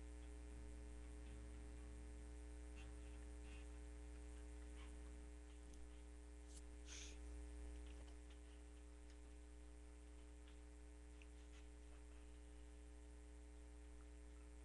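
Near silence with a steady low mains hum, a few faint clicks, and one brief soft rustle about seven seconds in.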